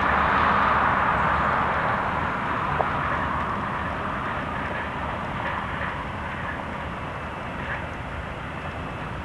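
The four GEnx turbofan engines of a Boeing 747-8 Freighter running on the runway. They make a steady jet rush over a low rumble that slowly grows quieter.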